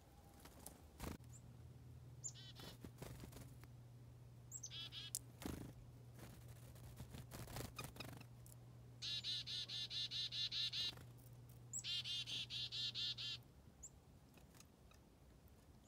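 Black-capped chickadees giving their chick-a-dee call four times: each call is a brief high note followed by a quick run of buzzy dee notes, the last two runs long and the loudest. A low steady hum runs beneath most of it, with a few soft clicks.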